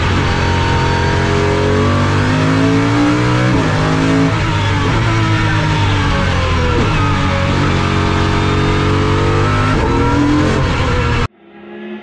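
Pagani Huayra R's naturally aspirated V12 under hard acceleration, heard from inside the cabin: its pitch climbs and then drops suddenly again and again as it shifts up and lifts. Near the end the sound cuts abruptly to a quieter, more distant engine note of the car out on the circuit.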